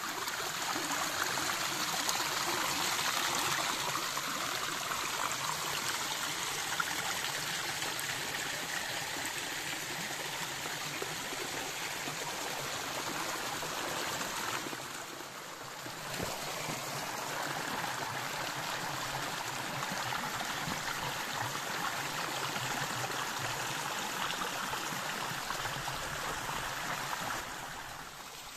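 Small waterfall running over mossy rock and splashing into a shallow pool: a steady rush of water, briefly softer about halfway through.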